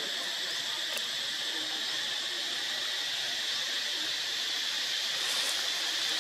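Steady, high-pitched drone of an insect chorus in the forest, unchanging throughout, with a faint click about a second in.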